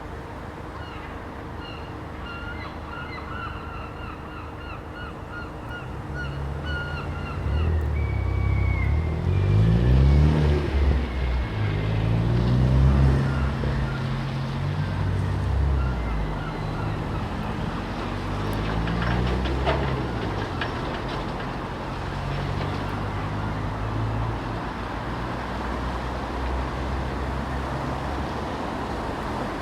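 Gulls call in a quick series of short, high notes over the first several seconds. Then a motor vehicle's engine comes in and becomes the loudest sound, its pitch rising and falling, strongest about ten to thirteen seconds in. It goes on running over steady traffic noise to the end.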